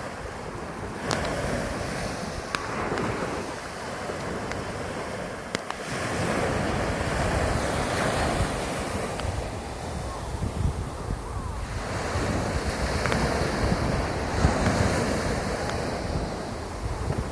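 Sea waves breaking and washing up the beach, the surf noise swelling and easing every few seconds, with wind rumbling on the microphone.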